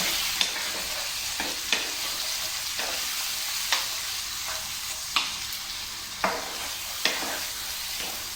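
Marinated lamb pieces sizzling as they stir-fry in hot oil in a karahi, being browned on all sides. A spoon knocks and scrapes against the pan about once a second.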